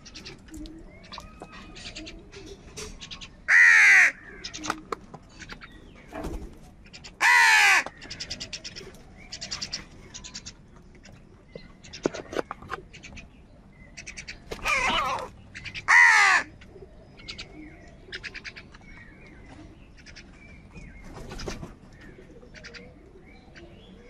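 House crows cawing: four loud, harsh caws spaced a few seconds apart, with many shorter, quieter calls and clicks in between.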